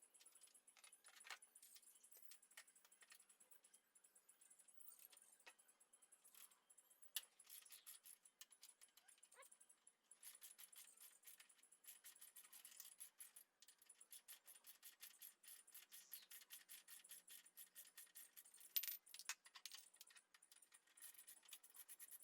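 Faint, rapid metallic clicking and clinking, with a couple of louder clicks along the way.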